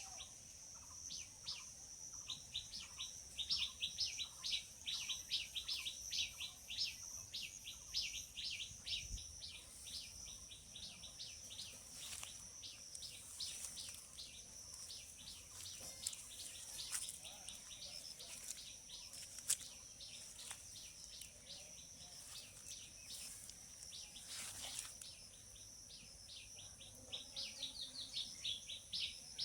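Small birds chirping in quick repeated high notes, about four a second, over a steady high-pitched insect drone. The chirping thins out for a few seconds and picks up again near the end.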